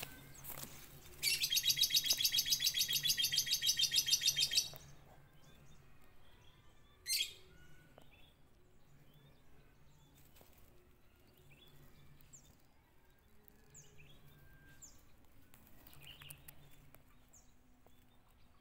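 A bird calling: a loud, fast, even run of high notes for about three and a half seconds, then a single sharp call a couple of seconds later, followed by faint short high chirps.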